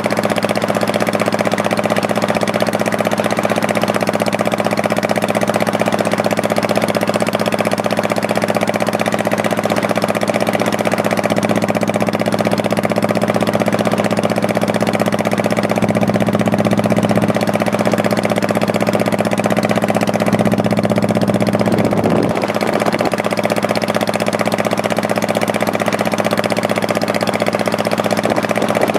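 Honda Shadow Spirit 1100's V-twin engine running at a steady pace while riding. Its note shifts briefly about twenty-two seconds in.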